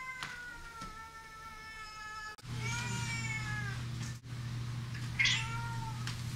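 A domestic cat meowing three times: first a long, drawn-out meow with slowly falling pitch, then a shorter meow that rises and falls, and a briefer one near the end.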